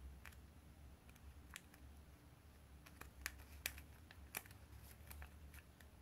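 Origami paper being folded and creased by hand: faint, scattered crisp crackles of the paper, a few sharper ones about three to four and a half seconds in, over a low steady hum.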